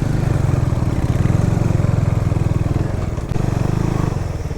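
Motorcycle engine running at a low, steady speed while the bike rides slowly over a rough dirt road; the engine eases off briefly about three seconds in, then picks up again.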